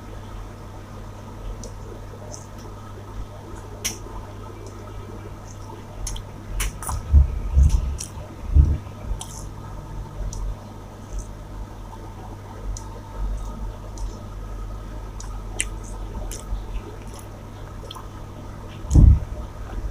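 Close-miked eating of rice with chicken masala: wet squishing and chewing with scattered small clicks, and a few louder low thumps about a third of the way in and again near the end, over a steady low hum.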